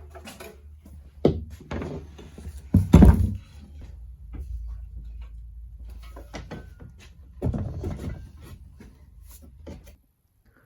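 Items being set down and moved about on a wooden workbench top: irregular knocks and clunks, the loudest about a second in and around three seconds in, over a low steady hum.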